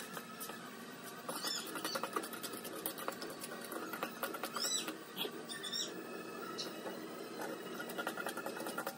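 A few short, high squeaky chirps over a steady patter of light clicks and taps.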